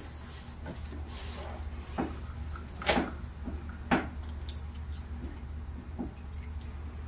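A handful of light, scattered plastic clicks and taps as the small parts of a wire-splicing connector are handled, over a faint steady low hum.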